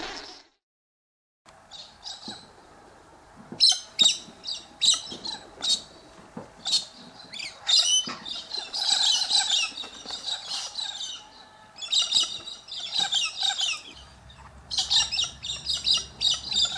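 Australian king parrots calling: a string of sharp, high-pitched chirps and squawks, some single and some in quick runs, starting about a second and a half in.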